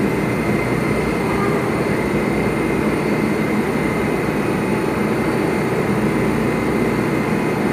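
Steady drone of an R188 subway train standing at the platform with its doors open, its onboard equipment running, with a thin steady tone above it.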